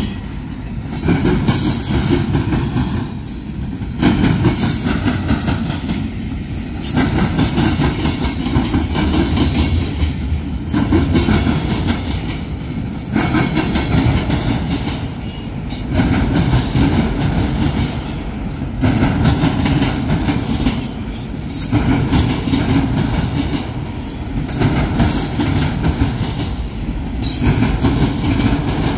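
Railroad cars of a passing train rolling by, their wheels clicking over the rail joints. The sound swells and dips about every two to three seconds as each car goes past.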